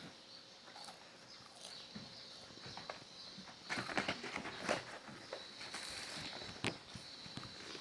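A cat's paws scratching and tapping on cardboard, in irregular scrapes and clicks, with a cluster of them about four seconds in.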